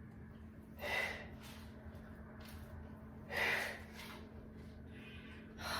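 A woman's hard breaths out under exertion during a weighted twisting exercise: three short, forceful exhalations about two and a half seconds apart.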